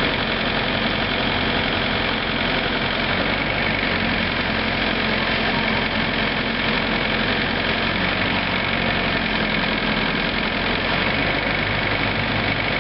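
John Deere 50 ZTS mini excavator's diesel engine running steadily while the boom and arm swing under hydraulic power. The engine note shifts slightly near the end.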